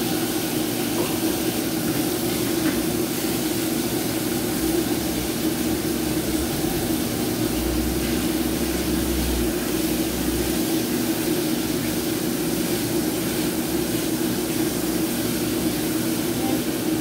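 Steady hum of a kitchen range hood extractor fan over an even hiss of food frying in a wok on a gas burner.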